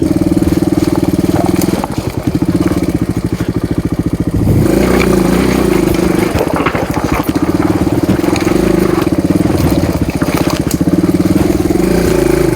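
Single-cylinder dual-sport motorcycle engine running at low, steady revs on a slow trail ride, louder and rougher from about four and a half seconds in.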